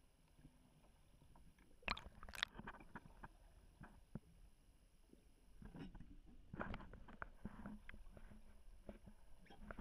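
Muffled underwater sound picked up through a waterproof camera housing: faint water movement with scattered sharp clicks and knocks, two louder clicks about two seconds in, and busier rustling and knocking from about six seconds on.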